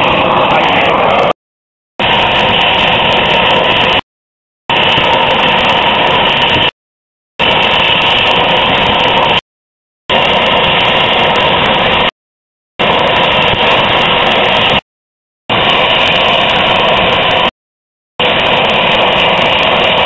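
Steady mechanical running noise, with no change in pitch, broken by a sudden half-second gap of silence about every two and a half seconds.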